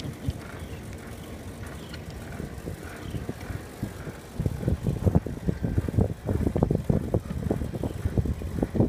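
Wind buffeting the microphone of a phone carried on a moving bicycle, a low rumble that turns louder and gustier from about halfway through.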